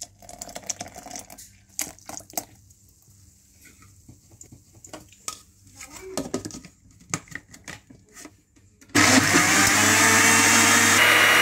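Milk poured into a plastic blender jar, then scattered clicks and knocks as the lid is fitted. About nine seconds in, the blender motor starts suddenly and runs loud and steady, blending banana and milk into a milkshake.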